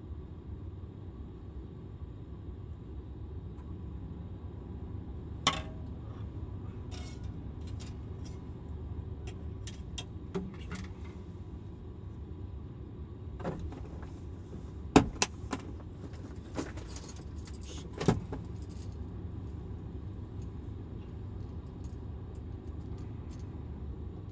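Small metallic clicks and clinks of fishing tackle being handled while a rod is rigged. A handful of sharp ticks come scattered through, the loudest about two-thirds of the way in, over a steady low rumble.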